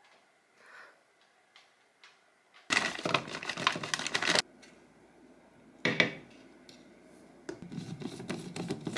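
Frozen fruit clattering as it is poured into a plastic personal blender cup, about three seconds in. A single sharp knock follows near the middle, then scraping and clicking as the lid is fitted onto the cup.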